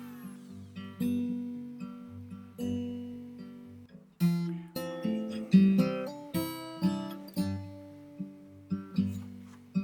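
Background music of acoustic guitar: slow plucked and strummed chords that ring on, then a quicker run of picked notes from about four seconds in.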